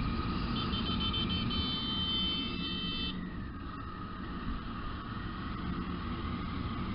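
Motorcycle engine running with wind and road noise, picked up by a camera mounted on the moving bike. A high steady tone, broken a few times, sounds from about half a second to three seconds in.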